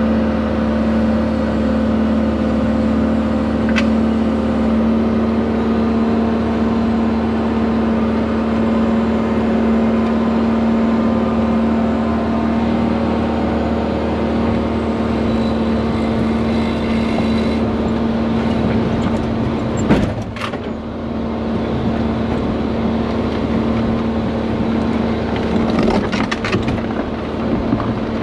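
Hyundai excavator's diesel engine and hydraulics running steadily with a constant hum, heard from inside the operator's cab as the machine travels with a heavy concrete block slung from its bucket. A single sharp knock comes about twenty seconds in, and there is some rattling near the end.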